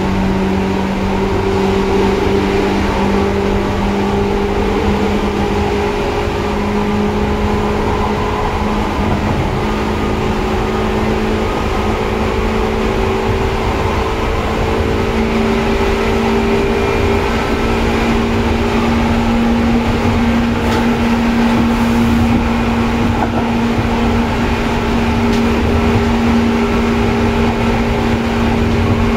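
Seibu 2000-series electric train heard from on board: the traction motor whine, a steady tone that slowly rises in pitch as the train gathers speed, over a continuous rumble of wheels on rail.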